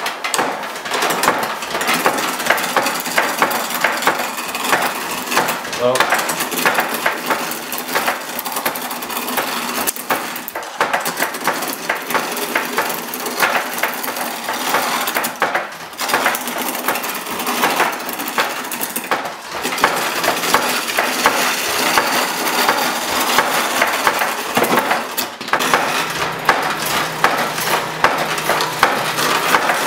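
Skew chisel cutting a spruce spindle spinning on a treadle lathe: a continuous rough scraping and chattering of the tool against the wood. It breaks off for a moment now and then.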